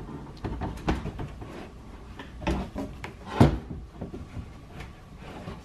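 Knocks, clicks and scrapes of a 2011 Cadillac STS door window glass being fed down into the door from the outside, front edge first, bumping against the door frame; one knock about three and a half seconds in is the loudest.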